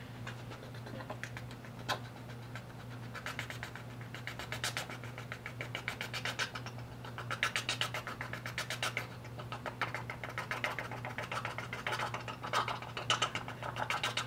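A man's vocal imitation of a helicopter: a fast, even chopping pulse made with the mouth, building up over the first few seconds. He says it could pass for a John Deere tractor as much as a helicopter.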